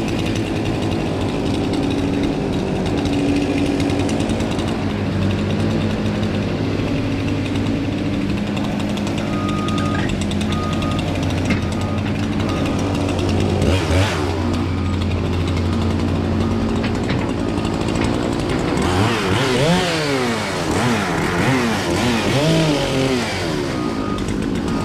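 Excavator diesel engine running steadily alongside a chainsaw during tree felling. Near the end the engine pitch swings up and down several times, revving as it cuts.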